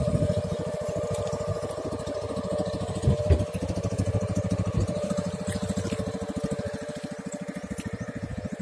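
A small boat engine running steadily with a fast, even chug that slowly fades. A single knock stands out about three seconds in.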